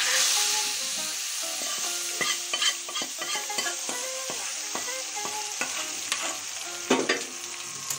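Hot oil tempering with cumin seeds and dried red chillies sizzling as it is poured from a metal kadhai into a bowl of chutney, loudest right at the first pour. A steel ladle scrapes the pan throughout, with many sharp metallic clinks.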